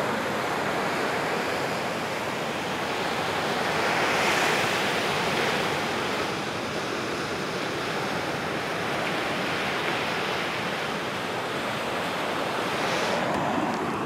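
Ocean surf washing onto a sandy beach, a steady rush of waves that swells louder about four seconds in and again near the end.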